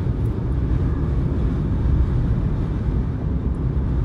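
Steady low road and engine rumble inside a moving car's cabin at highway speed.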